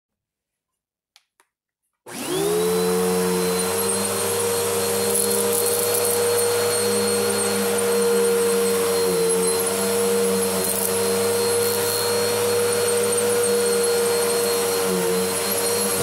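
Two faint clicks, then about two seconds in a vacuum cleaner switches on, its motor spinning up quickly to a steady whine as it runs over carpet. A gritty crackle of debris being sucked up comes through now and then, and the motor's pitch dips briefly twice.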